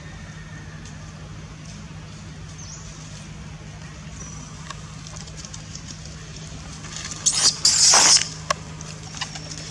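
Faint, thin, high-pitched squeaks of an infant macaque crying, over a steady low hum. About seven seconds in, a loud scuffling rustle lasts about a second, followed by a few short clicks.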